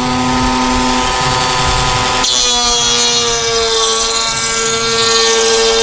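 Table-mounted router with a chamfer bit running steadily at a high pitch; about two seconds in the bit starts cutting the edge of a wooden brace, adding a rough hiss over the motor's whine.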